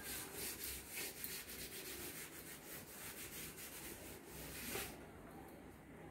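Cloth rag wiping chalk off a chalkboard in quick, repeated back-and-forth strokes. The rubbing stops about a second before the end.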